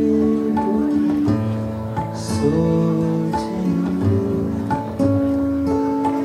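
Music with a plucked string instrument and long held notes that step from one pitch to the next.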